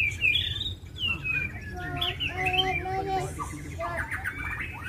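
White-rumped shamas (murai batu) singing in a fast string of short whistled notes that glide up and down, with a few longer held notes mixed in: the worked-up, fighting song used to goad other shamas into singing. A steady low hum runs underneath.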